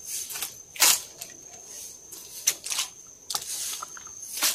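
A string of irregular crackling and rustling clicks, loudest about a second in and near the end, over a steady high insect drone.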